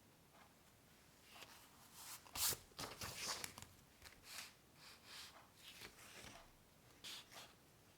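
Irregular dry scratching strokes of a drawing tool on paper, in quick uneven bursts that are densest and loudest a few seconds in, then thin out.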